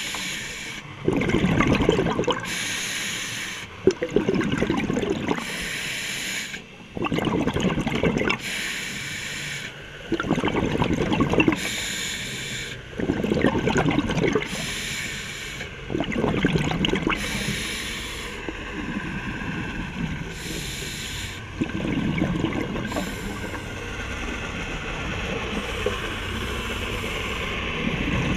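A scuba diver breathing through a regulator, heard underwater: each breath ends in a burst of exhaled bubbles, about every three seconds, steadier and less distinct near the end.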